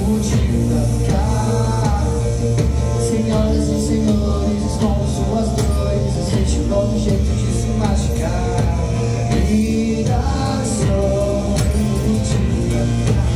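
Live rock band playing: a singer over electric guitars, bass guitar and drums.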